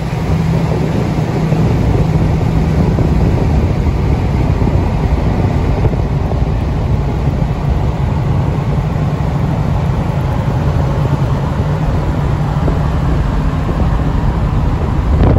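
Vehicle cruising at road speed: a steady engine drone under constant wind and road noise.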